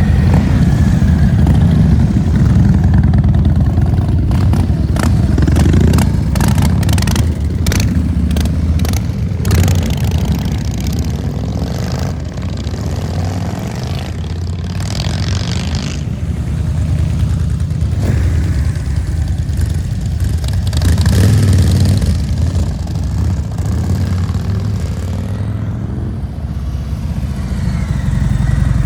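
Harley-Davidson V-twin motorcycle engines running loud and deep, revving and swelling as bikes pass. A run of sharp cracks comes between about four and ten seconds in.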